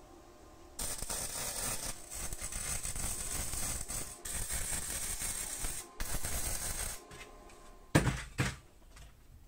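MIG welding arc crackling as laser-cut steel plates are welded, in several runs with short breaks between. Near the end, two loud metal knocks as the clamped steel part is moved.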